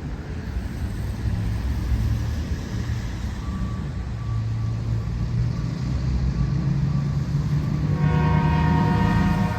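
Train locomotive running with a low rumble that slowly grows louder, then its horn sounds a chord about eight seconds in.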